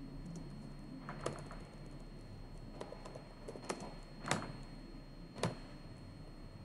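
Typing on a computer keyboard: sparse, irregular keystrokes, a few sharper clicks among fainter ones, over a faint steady high-pitched tone.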